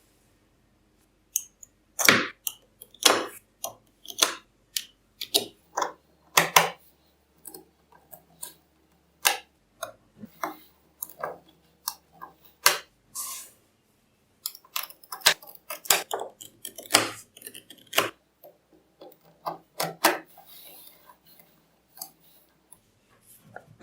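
Small magnetic balls clicking and snapping together as they are handled and set in place, in irregular sharp clicks, some single and some in quick clusters.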